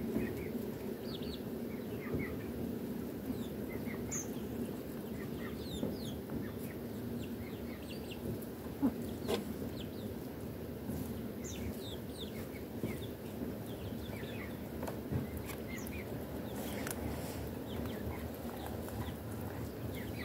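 Domestic hens clucking softly while they forage, with scattered short high calls over a steady low background noise.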